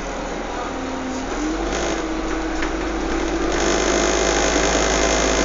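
A motor running with a steady whine that drops and glides back up about a second in, under a wash of noise that grows louder partway through.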